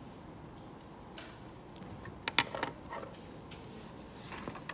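A few sharp clicks close together about two and a half seconds in, with soft rustles before and after, over quiet room tone.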